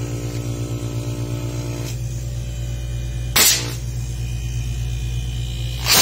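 Refrigerator compressor running on test, a steady low electric hum with a fast even pulsing, which sounds normal and healthy. About halfway through, a short loud rush of noise cuts across it.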